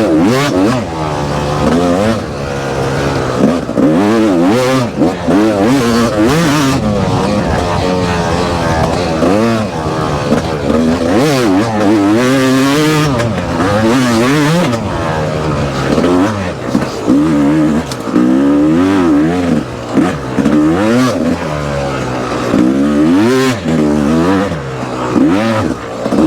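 Yamaha YZF four-stroke dirt bike engine being ridden hard, revving up and down again and again as the throttle opens and closes and the gears change.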